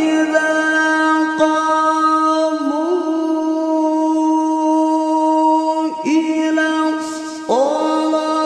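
A male qari reciting the Quran in melodic qiroah style, holding one long steady note for about six seconds. After a short break he starts the next phrase near the end.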